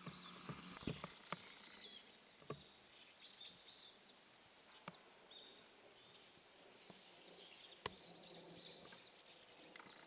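Faint, short, high-pitched calls of small birds chirping on and off, with a few soft clicks in between.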